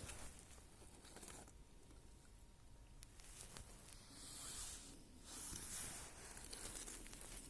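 Faint rustling and scraping as small sticks and debris are handled for a fire, in several soft swells with a few light clicks.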